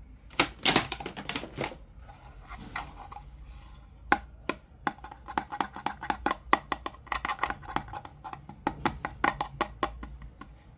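Doll packaging being taken apart by hand: a short burst of rustling, then a long irregular run of sharp plastic clicks and snips, several a second.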